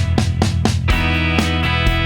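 Background music: an upbeat track with guitar over a steady beat.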